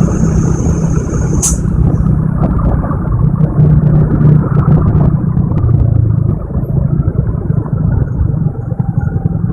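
Heavy diesel engine of a truck or excavator running with a loud, steady low rumble. A thin high whine over it stops with a sharp click about one and a half seconds in.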